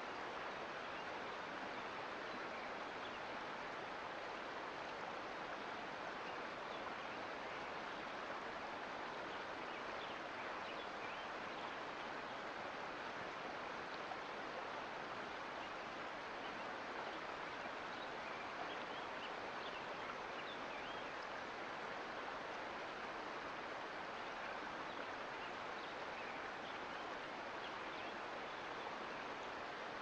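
Mountain creek water flowing: a soft, steady rush with small scattered splashes.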